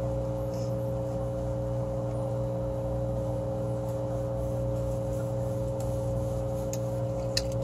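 A steady hum of several held tones over a low rumble, unchanging throughout, with a single sharp click near the end.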